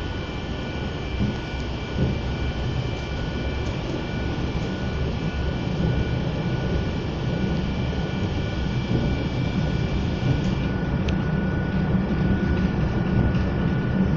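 Inside a passenger train running along the line: a steady rumble from the wheels and running gear, with a faint steady high whine, slowly growing a little louder as the train picks up speed.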